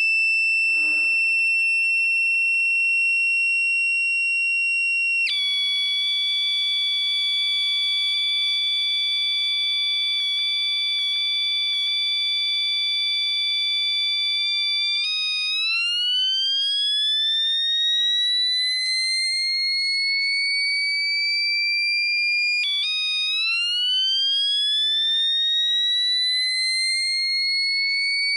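Homemade microcontroller-driven electronic siren imitating a factory siren. It holds a steady, high, buzzy tone, switches about five seconds in to a lower steady tone, then slowly rises in pitch like a motor siren winding up. Near the end it briefly drops back and winds up again.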